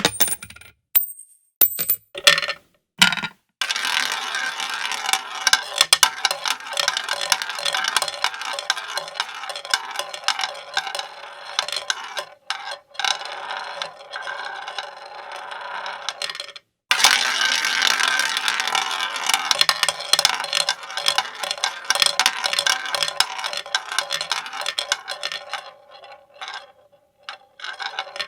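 Casino sound effect of many coins clattering and pouring in rapid, dense succession, like a slot-machine payout into a metal tray, with a few short separate sounds at the start and a brief break a little past halfway.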